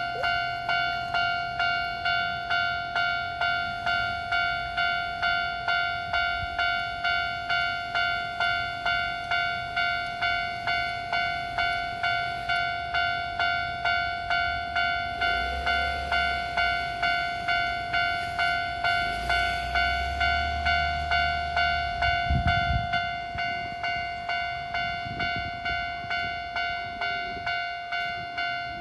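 Japanese railroad crossing warning bell ringing steadily with a repeating electronic ding, about two strikes a second. A low rumble passes through in the middle.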